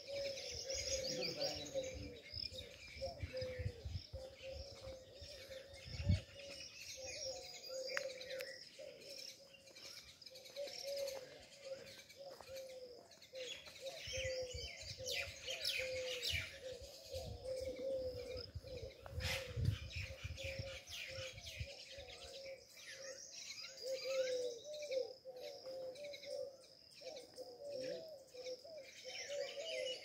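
Many birds chirping and calling at once, high chirps and trills over a low call that repeats again and again. A dull thump comes about six seconds in.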